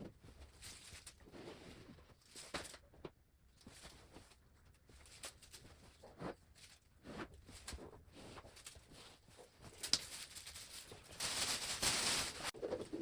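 Faint, scattered light taps and knocks, with a short rustling hiss near the end.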